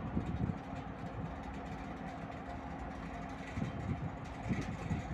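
Steady ship engine hum, with gusts of wind buffeting the microphone near the start and again toward the end.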